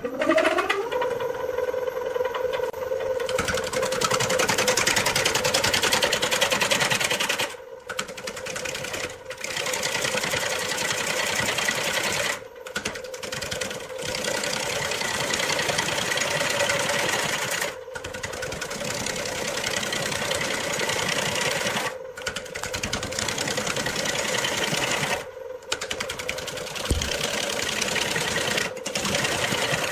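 Wood lathe motor spinning up with a rising whine at the start, then running steadily while a tool works the spinning wood with a loud hissing scrape. The scrape stops and restarts in short breaks every few seconds.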